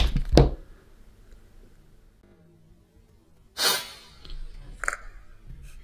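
Electrical arcing as a wire from a 20 V bench power supply touches the cordless drill's battery contacts: a sharp crackle of sparks at the start and a loud hissing burst about three and a half seconds in. The supply is shorting through the drill, hot enough to weld the wire to the contact.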